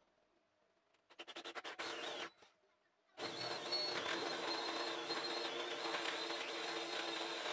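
Handheld electric drill boring a hole through plywood. It starts with a few short trigger pulses, then runs steadily under load from about three seconds in.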